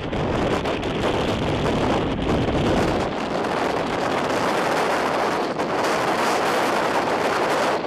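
Storm wind and rain close to a tornado, rushing against a car and buffeting the microphone. A heavy low rumble drops away about three seconds in, leaving a steady higher hiss.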